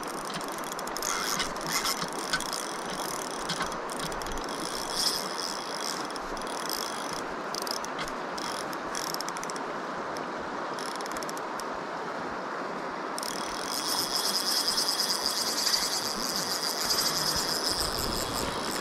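Spinning reel being cranked to play a hooked fish, its gears and pawl ticking steadily, over the steady rush of river current. The reel sound gets louder about two-thirds of the way through.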